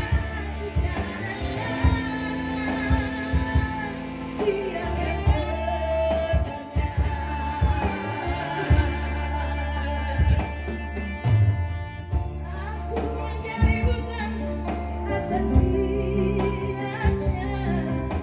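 A song with a sung melody over a heavy bass line and a regular drum beat, played through Yamaha DBR and DSR powered PA loudspeakers as a sound test.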